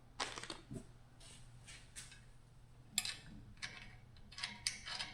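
A run of short, irregular scrapes and clicks, about ten in all, from hand work on a boat trailer winch being fitted.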